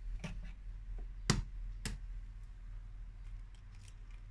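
Two sharp clicks about half a second apart, over a low steady hum.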